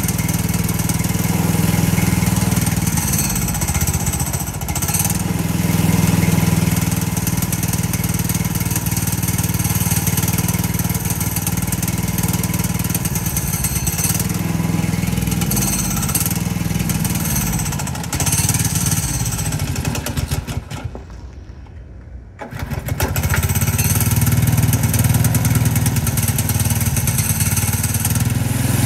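Subaru Robin SP170 single-cylinder four-stroke engine running on the freshly repaired scooter, with its speed rising and easing several times. About three-quarters of the way through, it cuts out for a second or two, then runs again at full strength.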